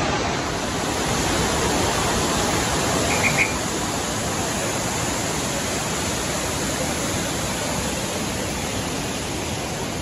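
Waterfall pouring onto rock: a steady, even rush of falling water.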